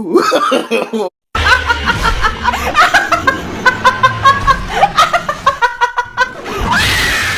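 Person laughing in quick, repeated bursts, with a swelling hiss near the end.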